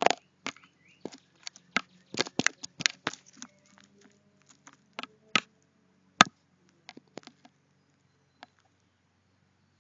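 A crow tapping and scraping at close range on a security camera: a quick run of sharp taps for the first three seconds or so, then scattered single taps, with one loud knock about six seconds in.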